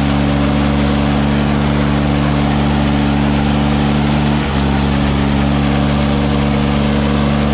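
Swaraj 855 tractor's three-cylinder diesel engine running at steady revs under load while pulling two harrows, its note dipping briefly about halfway through.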